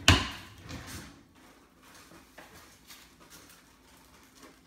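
A single sharp knock, then a few lighter knocks and small clicks over the next second; handling noise, with no blender motor running.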